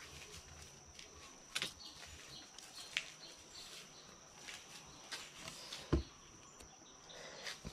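Faint steady high-pitched insect trill, with a few light clicks and a dull knock about six seconds in as a crab-net pole is handled.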